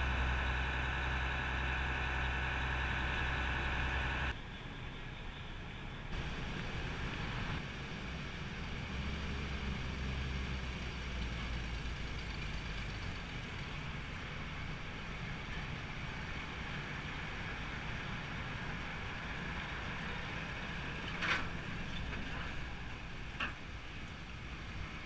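The ferry's engines run steadily with a deep, even drone for the first four seconds. Then an old Toyota Land Cruiser's engine and tyre noise come in as it drives off the ferry deck and up the landing ramp, with two sharp knocks near the end.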